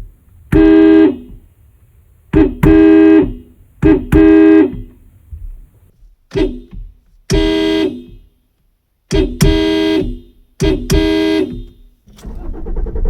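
Car horn honking again and again: short taps and longer blasts of up to about a second, roughly seven long ones, with silent gaps between. Near the end a steady mechanical noise starts and keeps going.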